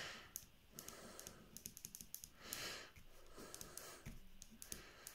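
Pen writing on a sheet of paper: faint, quick, irregular scratching strokes and small taps as words are written out, with a soft whoosh about halfway through.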